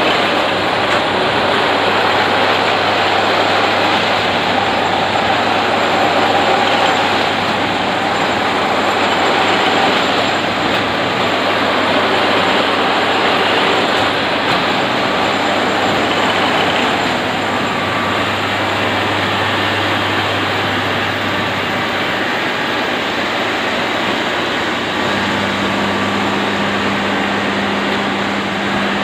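Railway track tamping machine working: a loud, steady mechanical din. A low hum gives way to a higher steady tone near the end.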